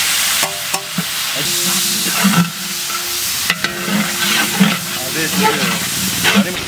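Onions, green chillies and coriander leaves frying in hot oil in a large metal biryani pot, sizzling steadily while a long-handled ladle stirs them around the pot, with a few short sharp scrapes of the ladle against the metal.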